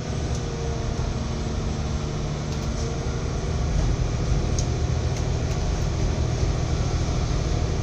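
Steady low rumble of a moving train heard from on board: wheels running along the rails, with a few faint clicks.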